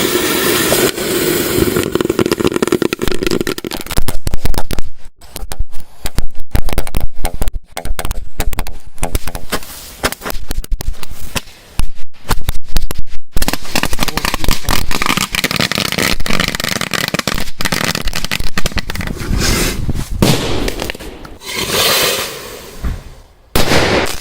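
Firecrackers exploding one after another, some set off inside a vacuum cleaner: rapid runs of cracks from firecracker strings and several very loud single bangs. A steady hum runs for the first few seconds.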